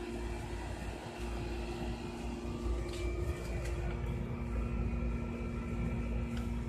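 A steady machine hum on two constant low tones, over a low rumble of wind or handling on the microphone, with a few sharp clicks about three seconds in.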